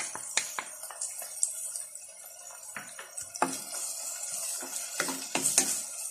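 Sliced onions and ginger-garlic paste sizzling in hot oil in a nonstick pot, with a wooden spoon stirring and scraping against the pot in irregular strokes.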